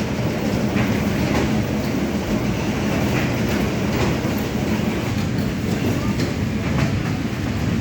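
Steady mechanical rumble with irregular clicks and knocks.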